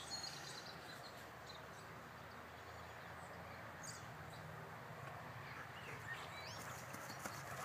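Faint steady outdoor ambience with a few short, high chirps near the start and again about six seconds in.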